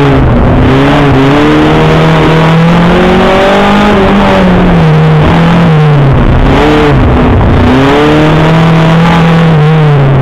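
Škoda Felicia rally car's engine, heard loud from inside the car, revving hard: the pitch climbs, falls back at each lift-off or gear change, and dips low about six seconds in as the car slows for a corner before pulling away again.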